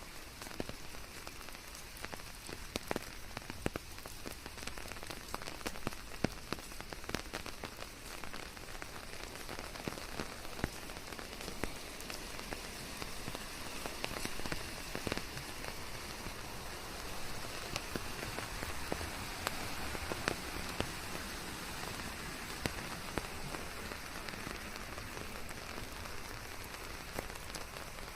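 Steady rain falling, with a constant hiss and many sharp ticks of single drops hitting a surface, mixed with white noise.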